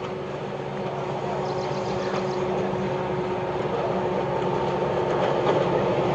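Diesel locomotive hauling a passenger train on its approach, its engine running with a steady droning tone, growing gradually louder as it draws near.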